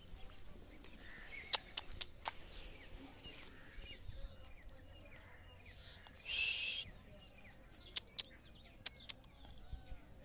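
Small birds chirping now and then, with scattered sharp clicks of footsteps on a sandy dirt lane. About six seconds in comes a loud, harsh burst lasting under a second.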